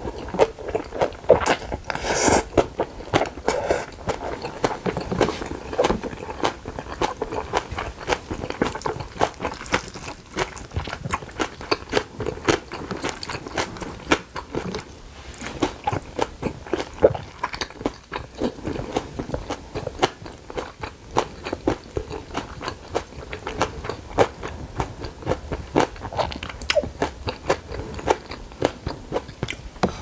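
Close-miked chewing and crunching of a mouthful of bibimbap with raw radish salad and seasoned bean sprouts: many small, irregular crisp crunches and wet mouth sounds. A wooden spoon scrapes and taps in the glass bowl now and then.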